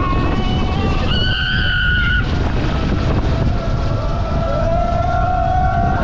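Wind buffeting the microphone as a heavy rumble, with mechanical whines over it: a brief high whine about a second in, and a lower whine that rises slowly in pitch from about four and a half seconds in.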